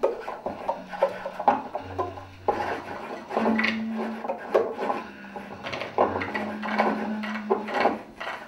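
Free-improvised music: found objects and homemade percussion scraping, rubbing and clattering in quick irregular strokes, over short held low notes from a bass clarinet.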